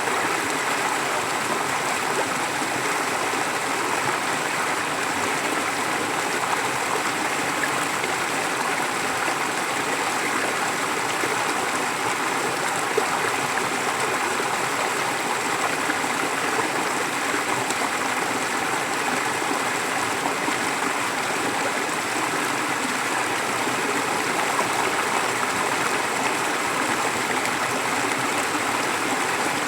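Forest stream flowing steadily, an even rush of running water with light gurgling and trickling.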